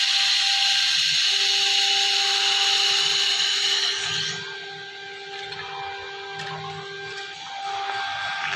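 AccTek AKH 1500 handheld laser welding machine at work: a loud, steady high-pitched hiss over a steady humming tone. The hiss cuts off about four seconds in, leaving the machine's hum.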